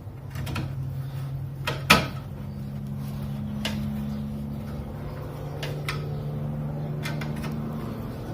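Clicks and knocks as a headlight unit is fitted back into its housing, with one sharp, loud knock about two seconds in. A steady low hum runs underneath and shifts higher at that knock.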